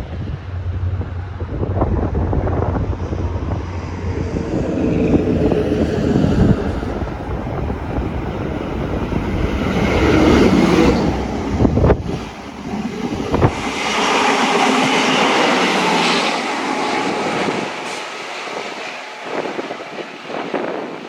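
A train running past: a steady low drone first, then louder rushing wheel noise with a few sharp clacks about halfway through, all under heavy wind noise on the microphone.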